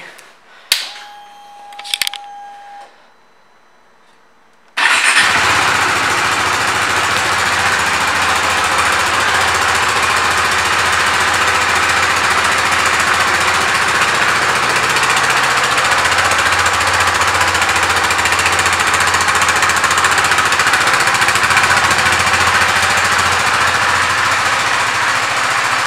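A click and a brief steady tone, then about five seconds in the KTM RC 390's single-cylinder engine starts abruptly and idles steadily.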